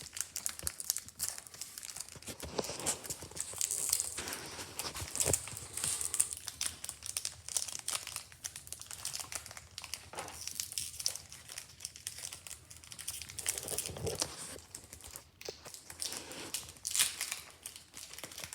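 Foil wrapper of a Pokémon card booster pack being crinkled and torn open by hand: an irregular crackling with sharper clicks and rips now and then.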